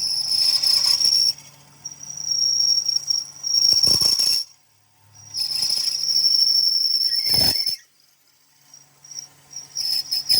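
A machine's steady high-pitched whine over a low hum, cutting out and starting again several times, with three sharp knocks.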